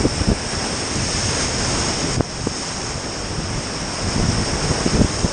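Steady rush and crash of big whitewater rapid waves around a raft, with wind buffeting the microphone.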